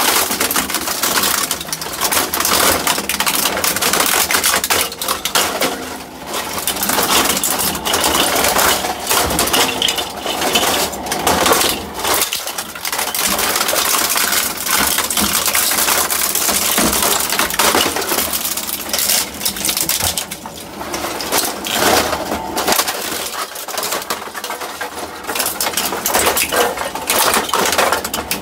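Industrial shredder chewing up inkjet printers: continuous cracking and crunching of plastic housings, with sharp clinks of metal parts as the cutters bite in.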